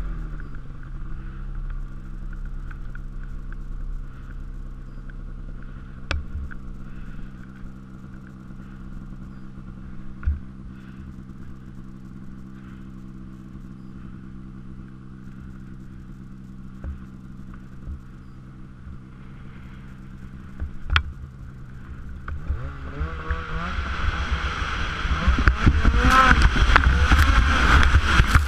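Polaris Pro RMK 800 snowmobile's two-stroke engine idling steadily, with a few isolated clicks. About 23 seconds in it revs up and runs hard at high throttle, getting much louder as the sled pulls away through deep snow.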